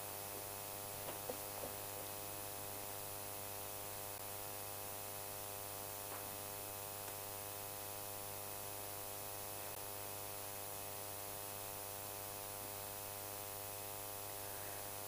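Steady electrical mains hum with a buzz of evenly spaced overtones and a constant hiss, with a few faint ticks about a second in.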